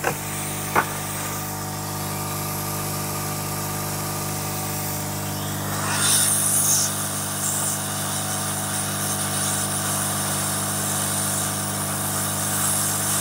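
Hot-air SMD rework station running: its blower motor hums steadily with a rush of hot air, used to reflow a replacement 2R2 SMD coil onto a TV mainboard. The air hiss grows stronger about six seconds in as the nozzle is brought down over the board. There is one small click near the start.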